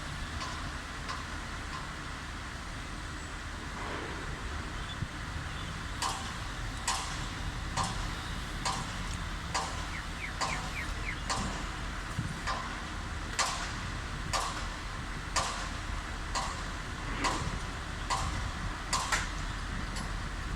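Steady wind rumble on the microphone. From about six seconds in, short sharp knocks or clicks repeat roughly once or twice a second.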